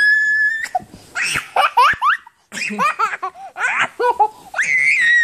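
Baby laughing: a long high squeal, then a run of short, bubbling laugh bursts, and another high squeal near the end.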